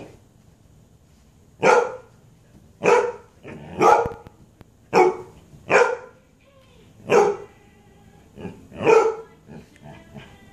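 A dog barking in play, crouched in a play bow: about seven loud, short barks roughly a second apart, with a few softer ones near the end.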